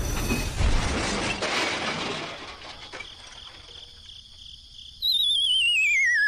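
A rough, clattering noise that fades away over the first two seconds, then, a second before the end, a loud whistle that slides down in pitch with a wavering wobble.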